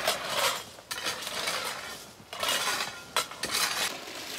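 Gravel being worked with a metal tool: about four scraping, crunching strokes roughly a second apart, with sharp metallic clinks.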